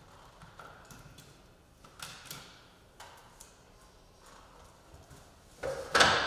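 Faint clicks and knocks of hands handling ceiling-mounted LED shop light fixtures and their wiring, then a louder knock that rings on briefly near the end.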